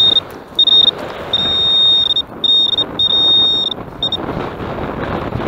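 Garrett handheld pinpointer probe sounding its high, steady alert tone in short on-and-off bursts as its tip is worked through a handful of wet mud, signalling metal close to the tip; the tone stops about four seconds in.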